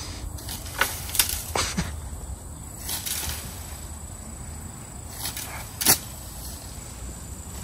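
Golf club striking a ball: one sharp crack about six seconds in, after a few fainter clicks in the first two seconds.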